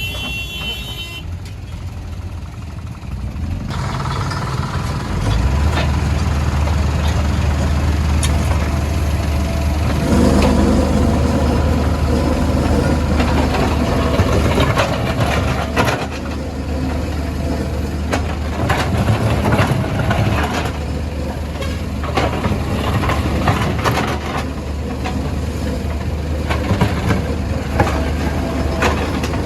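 Diesel engine of a Caterpillar backhoe loader running steadily under load, its hum growing louder a few seconds in. Scattered knocks and scrapes sound over it as the machine works the broken road surface.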